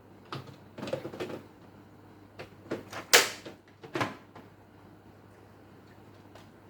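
A run of short clicks and knocks from objects being handled, the loudest a sharp clatter a little after three seconds in and another knock about a second later.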